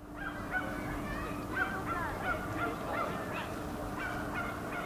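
Several birds calling over one another in short, repeated calls, with a steady low hum underneath.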